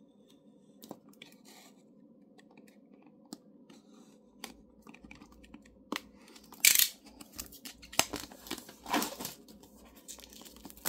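A utility knife blade scratching and slicing through the plastic shrink wrap on a cardboard box, in short rasping strokes with sharp clicks. The first few seconds hold only faint ticks; the cutting starts about halfway through, with the loudest rasp about two-thirds of the way in.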